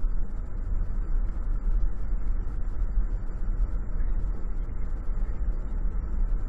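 Steady engine and road noise heard from inside a moving car's cabin, a continuous low rumble.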